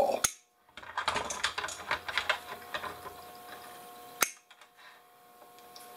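Quick small clicks and rattles of plastic parts and wires being handled as the copper induction coil of an induction cooktop is worked loose, with a sharp click just after the start and another about four seconds in.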